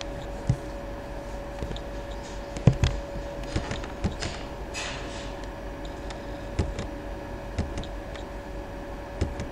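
Scattered light clicks and soft knocks, irregular and a second or so apart, over a faint steady hum and room noise.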